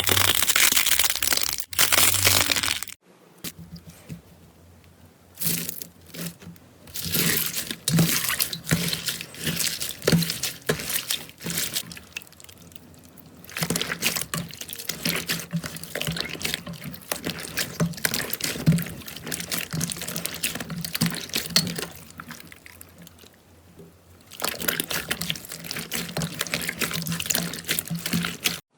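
Slime being squeezed and pressed by hand: wet crackling and popping clicks, in bursts with short pauses between them.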